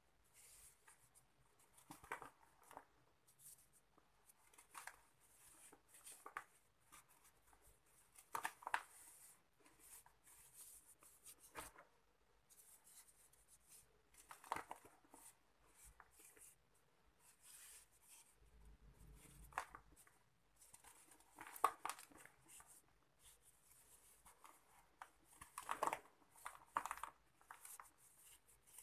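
Hands crushing dry sand-cement lumps and rubbing the gritty powder in a plastic tub. Short crunches and crackles come every second or two, with faint gritty rustling in between.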